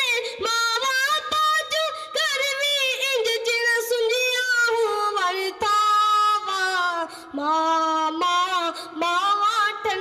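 A naat sung solo in a high voice, long held notes with heavy vibrato sliding between pitches, with no instruments heard.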